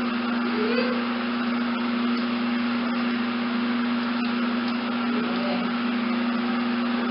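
A steady mechanical hum with a constant hiss, unchanging in level, with a few faint ticks.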